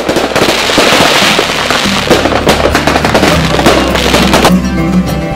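Fireworks sound effect, a dense run of crackling and popping bursts over background music; the crackling stops about four and a half seconds in and the music carries on alone.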